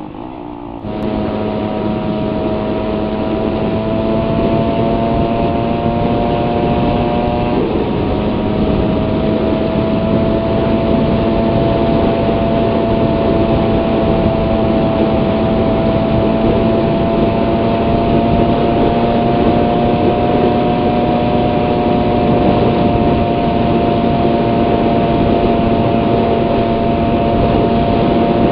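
Suzuki Raider 150 motorcycle engine running steadily at cruising speed, with wind and road noise. The engine note firms up about a second in, shifts once about seven and a half seconds in, then holds with a slow small rise in pitch.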